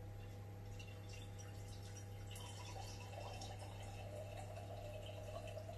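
Washed yeast slurry (yeast and water) running from a fermenter bucket into a glass mason jar. It starts faintly about a second in and grows fuller from about three seconds in. This is the stage where washed yeast is drawn off into jars to keep as starters.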